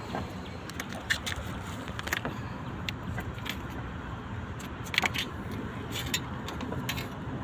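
Scattered sharp metallic clicks and clinks over a steady low rumble.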